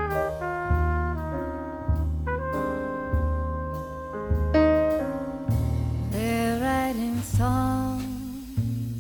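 Instrumental music: piano chords over a steady low bass line, joined about six seconds in by a sliding, horn-like melody line in a jazzy style.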